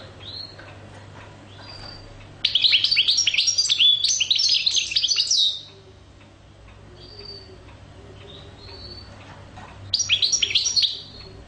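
Caged European goldfinch singing: a fast, tinkling twitter lasting about three seconds, a few short single call notes, then a second, shorter burst of twittering about ten seconds in.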